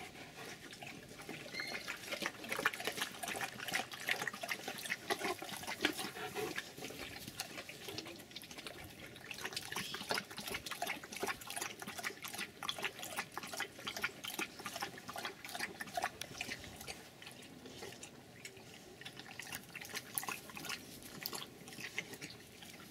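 A Rottweiler lapping and splashing water in a small garden tub pond, a quick run of wet slaps and clicks.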